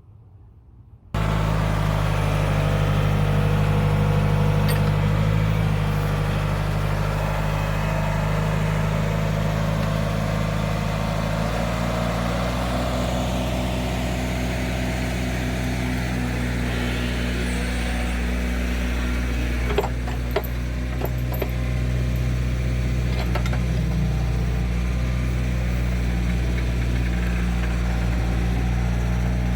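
Heavy digging machine's engine running steadily. It cuts in suddenly about a second in, its note shifts slightly a few times, and a few sharp clicks come about twenty seconds in.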